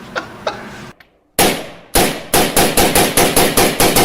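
Two light clicks, then a single loud gunshot about a second and a half in. Half a second later comes a rapid, even string of gunshots, about five a second, like automatic fire.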